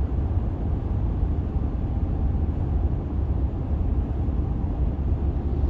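Union Pacific freight train passing, heard as a steady low rumble under an even haze of noise.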